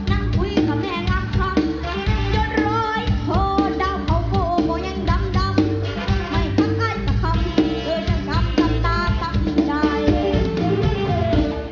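A boy singing into a microphone over a live Isan band's music with a steady drum beat.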